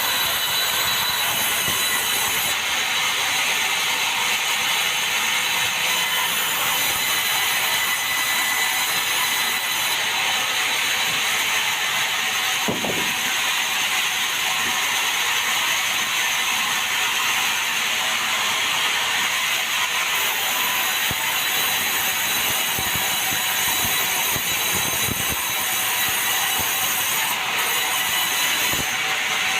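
Sawmill saw running through meranti timber: a steady, loud, unbroken cutting noise, with a few brief low knocks about halfway through and near the end.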